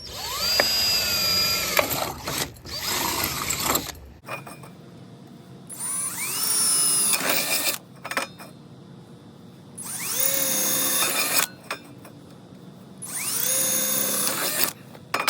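Electric drill with a 1/4-inch bit drilling through the thin stainless steel wall of a utensil caddy, run in five short bursts. Each burst starts with a rising whine as the motor spins up.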